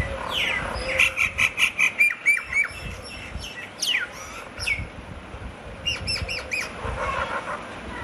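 Pair of Laysan albatrosses dancing in courtship. A rapid run of bill clacks comes about a second in, then squawking calls and falling whistles, and another short burst of clacks with calls at about six seconds.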